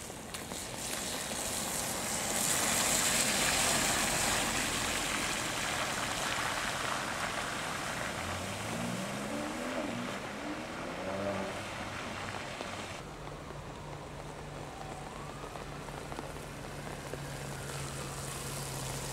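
A white BMW 4 Series coupé splashes through standing water, its tyres throwing up a loud hissing spray, then accelerates away with its engine note rising twice through the gears. From about two-thirds in, a black BMW 1 Series coupé creeps closer with a steady low engine hum, over the patter of rain on the road.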